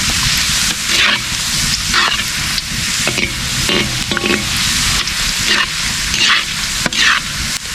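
Onion frying and sizzling in hot cooking oil in a large pan, being stirred with strokes about once a second. The onion is left to burn almost black to flavour the oil.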